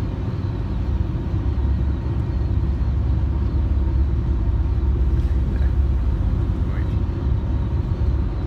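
Steady low road and engine rumble of a car driving along, heard inside the cabin.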